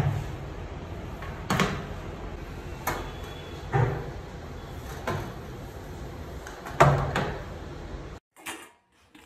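A wet string mop shoved under a toilet-stall door and worked across the tiled floor, knocking against the stall about six times a second or two apart. The first knock and one near the end are the loudest, over a steady hum; the sound cuts off abruptly after about eight seconds.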